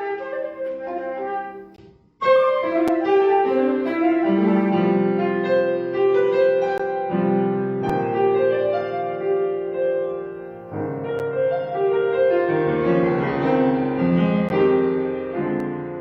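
Piano playing a classical chamber-music passage. It fades almost to silence about two seconds in, then comes back in loud with sustained chords and moving lines.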